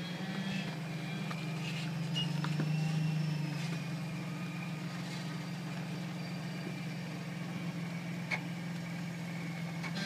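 Supercharged Jeep Wrangler Unlimited (JKU) engine running at low crawling revs as it climbs over rock ledges, swelling slightly about two seconds in and easing back. A single sharp click comes near the end.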